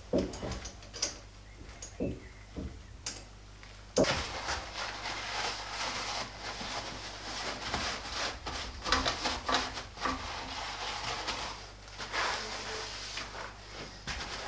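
A few metal clunks as a four-jaw chuck is handled off the lathe spindle. From about four seconds in, a rag rustles and scrubs steadily against the bare spindle nose as it is wiped clean.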